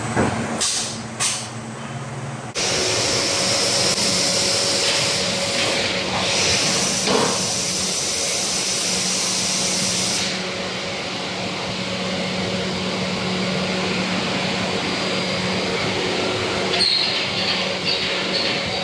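Haitian injection moulding machine running: a steady low hum with a loud hiss that starts suddenly about two and a half seconds in and eases off around ten seconds. There are two sharp clicks near the start and a few more near the end.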